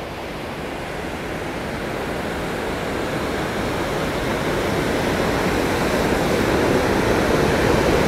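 Snake River whitewater cascading over rocks below the dam, a steady rushing that grows gradually louder.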